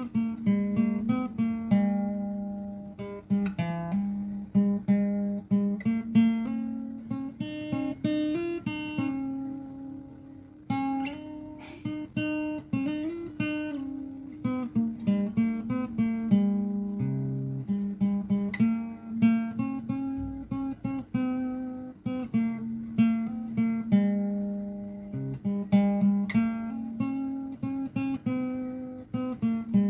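Background music: acoustic guitar picking a gentle melody, plucked notes in quick succession.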